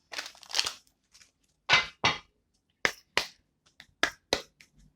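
Oracle cards being shuffled and handled: a run of short, uneven papery flicks and slaps in small clusters.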